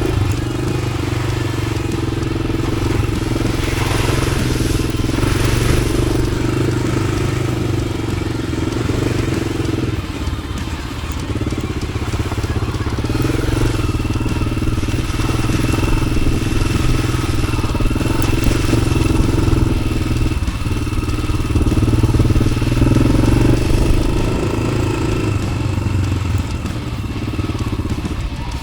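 Yamaha XT600's single-cylinder four-stroke engine, fitted with an aftermarket Arrow exhaust, running steadily as the motorcycle is ridden off-road. The throttle eases briefly about ten and again about twenty seconds in.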